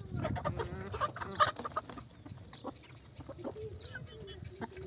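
Chickens clucking, with scattered clicks and knocks, busiest in the first two seconds.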